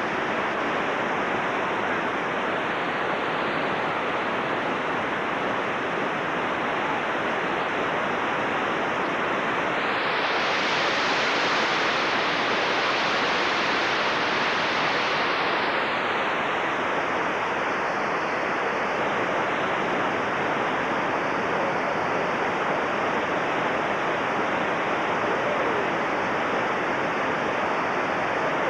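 Whitewater rapids rushing steadily, a continuous dense hiss of churning water. About ten seconds in it turns brighter and a little louder for some six seconds, then settles back.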